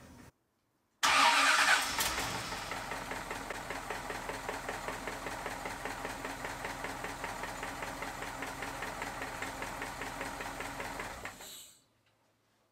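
1950 Cadillac 331 V8 running with a fast, even, rhythmic knock. The sound is loudest just after it comes in, then settles and stops near the end. The knock persists after the connecting rod bearings, valve train and oil pump were checked and the oil changed; the owner suspects a loose or broken flex plate or flywheel.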